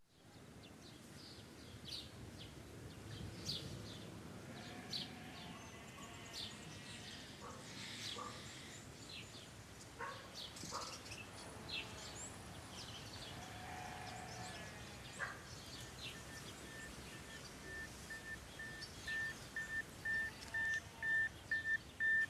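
Faint outdoor ambience with birds chirping now and then over a steady background hiss. Past the middle, a short high tone starts repeating in quick pulses and carries on to the end.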